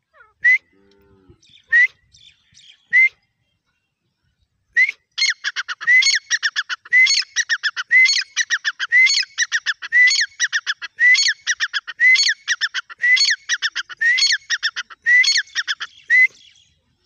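Grey francolin (teetar) calling: three single shrill notes, then from about five seconds in a loud run of call phrases about once a second. Each phrase is a rising note followed by a fast rattle of short notes.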